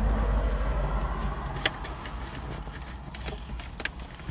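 Low rumble inside a parked car's cabin that eases off a little, with a few small clicks and rustles from the phone being handled.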